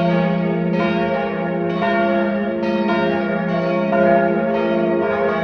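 Church bells pealing, several bells of different pitch striking in turn about once a second, their ringing tones overlapping into a steady hum.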